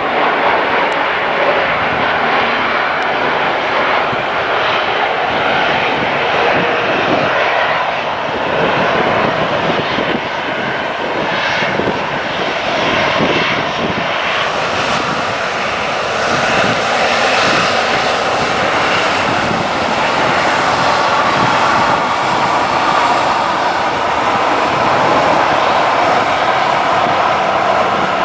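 Airliner's engines running loud and steady as an aircraft passes the airport spotting position. About halfway through, a thin high whine joins the engine noise.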